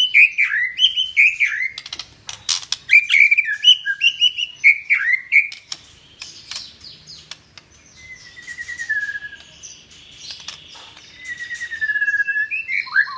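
White-rumped shama (murai batu Medan) singing a continuous, varied song: quick repeated down-slurred whistles, a few sharp clicks about two seconds in, then longer sliding phrases.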